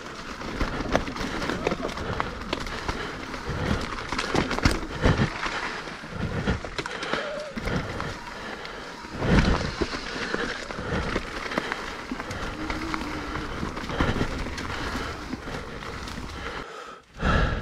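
Mountain bike rolling over a rough dirt and rock trail: a steady noise of tyres on the ground, broken by frequent knocks and rattles from the bike, the loudest about halfway through.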